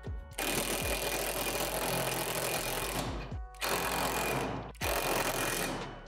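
Cordless drill with a socket bit running in three bursts, the first about two and a half seconds long, driving a bolt through a steel pole and extension arm. Background music plays underneath.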